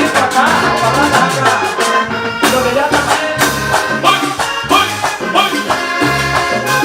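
Latin American dance music with a steady beat.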